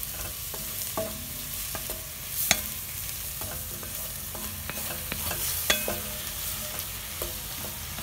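Wooden spatula stirring beef chunks, carrot and onion in a non-stick kazan, scraping and knocking against the pan at irregular moments over a steady sizzle of frying. The sharpest knocks come about two and a half seconds in and again near six seconds.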